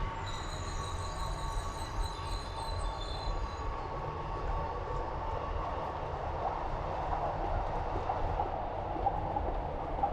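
Train running with a steady low rumble, and a high thin squeal of the wheels during the first few seconds.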